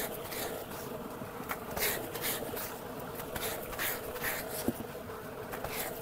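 Tubewell pump motor running with a steady hum while water gushes from its outlet pipe into a concrete tank, with irregular short splashing hisses.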